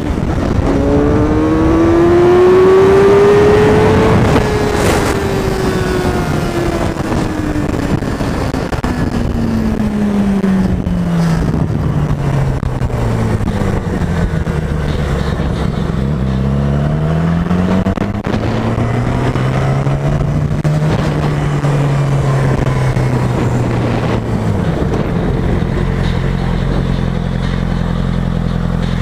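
2007 Yamaha R6 inline-four running through a Leo Vince aftermarket exhaust. The engine note climbs under acceleration for the first few seconds, falls slowly as the bike slows, rises twice more, and settles to a steadier low note near the end. Wind rushes over the microphone throughout.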